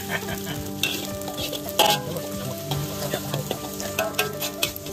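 Sliced onion, garlic and torch ginger flower sizzling in hot oil in a large metal wok, stirred with a metal spatula that scrapes and clicks against the pan. The sharpest scrape comes a little under two seconds in.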